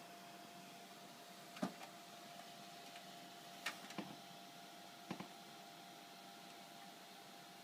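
A few faint, sharp clicks and taps, irregularly spaced, over a steady faint hum.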